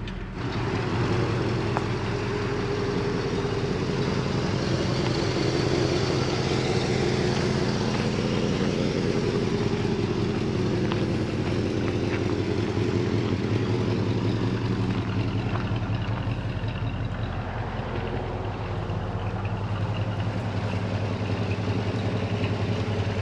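The 1969 Chevrolet El Camino's engine, a 350 small-block V8, running steadily at an even speed with no revving.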